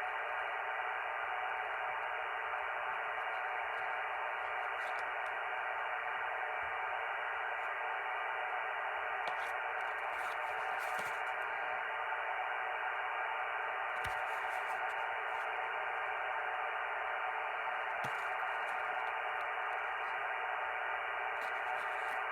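Steady hiss of radio static from a receiver between transmissions, confined to the narrow voice band of the radio.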